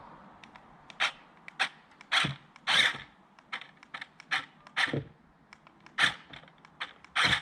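Irregular sharp clicks and knocks from a small plastic 8x8 skid-steer RC vehicle scrabbling and bumping against a climb-test step. It cannot quite pull itself over.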